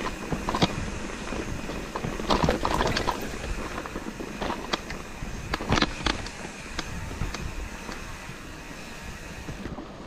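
Mountain bike rattling and knocking over a rough trail: irregular clicks and clunks, the sharpest about half a second, two and a half and six seconds in, over wind rustle on the microphone.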